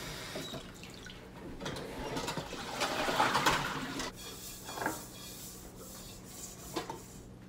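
Tap water running for a couple of seconds as a tea pan is washed by hand at the kitchen sink, followed by a few light knocks of the pan.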